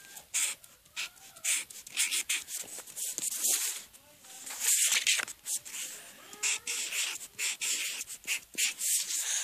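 Writing on paper: irregular short, scratchy strokes of a pen or marker, as a name is written out, loudest about five seconds in.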